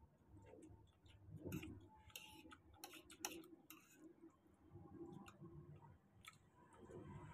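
Faint eating sounds: scattered soft clicks and taps as a fork and fingers work through rice, noodles and prawns on a tray.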